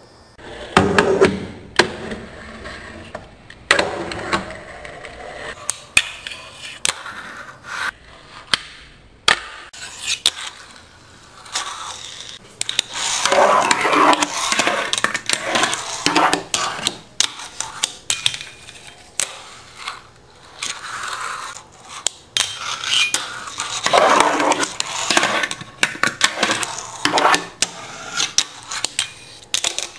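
A fingerboard ridden with the fingertips: repeated sharp clicks and clacks of the small board popping and landing, with rolling and longer scraping stretches as it slides and grinds along an obstacle edge. The longest scrapes come about halfway through and again near the end.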